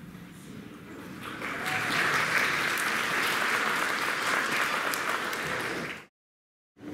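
Audience clapping, swelling into full applause about a second in and cutting off abruptly near the end, followed by a brief dead silence.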